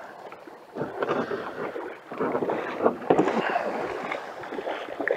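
A canoe being boarded and pushed off at the water's edge: irregular knocks and scrapes against the hull, with water moving around it. The sharpest knocks come about three seconds in.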